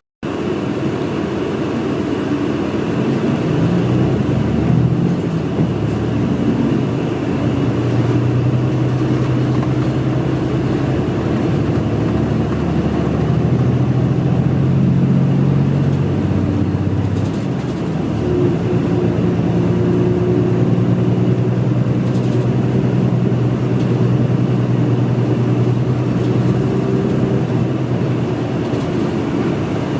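City bus running on the road, heard from inside the passenger cabin. Its engine note climbs in the first few seconds and then holds steady. It drops briefly a little past halfway, then holds steady again.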